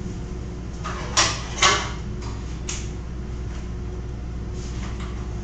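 Steady low electrical hum of equipment, with two brief sharp noises a little over a second in, close together, and a fainter one near three seconds.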